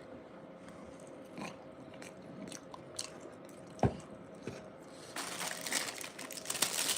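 Close-miked eating-show sounds with a faint steady hum: scattered small mouth and handling clicks and one sharp tap about four seconds in, then dense crinkling of a burrito's wrapper from about five seconds in.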